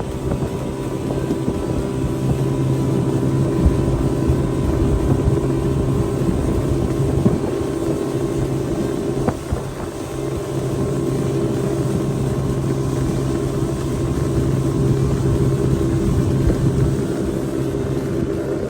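Outboard motor running steadily at low speed, a constant hum with no revving.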